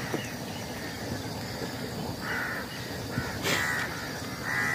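A crow cawing, three short calls starting about two seconds in.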